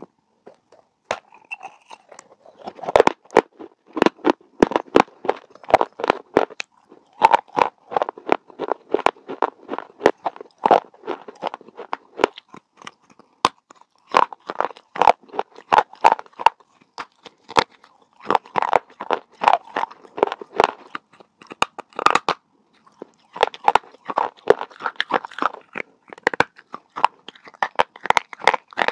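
A person biting and chewing pieces of a baked clay pot: rapid runs of sharp, dry crunches, several a second, broken by short pauses.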